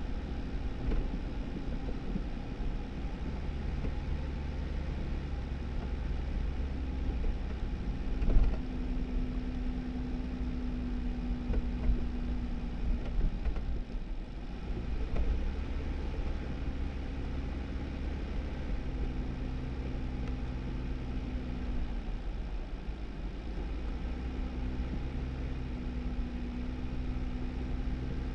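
2018 Jeep Wrangler driving on a snowy dirt road: a steady rumble of engine and tyres, with the engine note rising and falling a little. There is a sharp knock about eight seconds in and a few smaller knocks a few seconds later, from bumps in the road.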